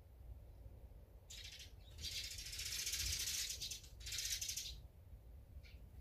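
A bird's harsh, rapid rattling chatter in three bursts: a short one just over a second in, a long one of about two seconds, then another lasting just under a second.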